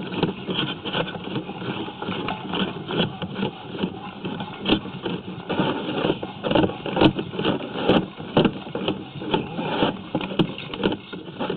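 Drain inspection camera on its push rod being fed down a sewer pipe: a rapid, irregular clatter and scraping.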